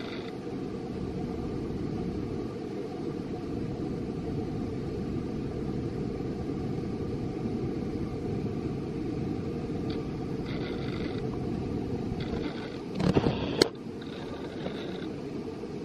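Steady low outdoor rumble, with a short, loud clatter of knocks about thirteen seconds in.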